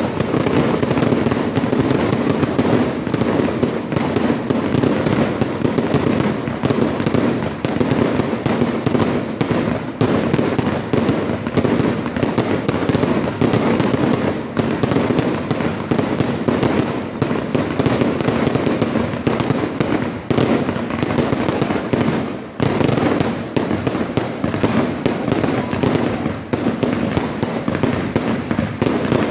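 Fireworks display: aerial shells bursting in a dense, continuous barrage of overlapping bangs, with hardly a gap.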